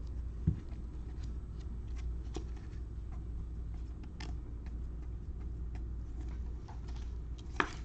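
Trading cards being handled and flipped through: scattered light clicks and ticks of cards, with a low thump about half a second in and a sharper click near the end, over a steady low hum.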